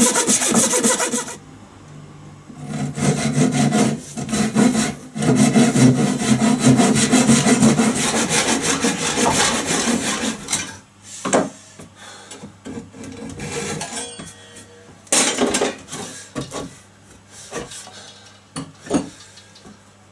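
Hand saw rip-cutting a wooden board into a bass neck blank, quick back-and-forth strokes. After about ten seconds the sawing stops, followed by scattered knocks and clatters of wood as the cut piece is handled.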